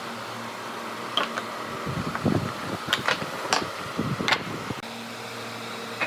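A steady fan-like mechanical hum, with a handful of sharp clicks and knocks between about one and four and a half seconds in.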